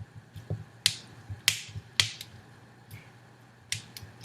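Finger knuckles cracking: several sharp, irregular pops. This is the normal joint crack made when gas bubbles are released in the joint fluid as the joint is pressed to full flexion.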